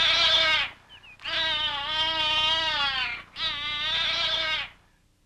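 Cat yowling in hostility: three long, slightly wavering yowls in a row, each one to two seconds long.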